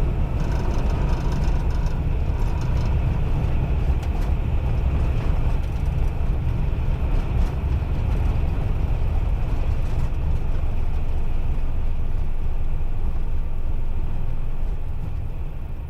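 Airbus A320 rolling out on the runway just after touchdown, heard inside the cockpit: a steady low rumble of engines, wheels and airflow, easing slightly near the end as the aircraft slows.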